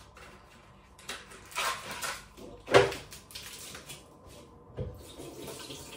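Ready-made pastry packaging being handled on a kitchen counter: rustling, a sharp knock a little under three seconds in, and a softer thump near the end.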